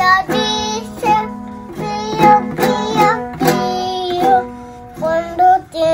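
A toddler singing in short phrases while strumming a toy ukulele.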